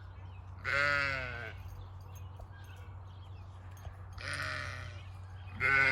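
Sheep bleating three times, each bleat under a second long with a wavering pitch; the second and third come close together near the end.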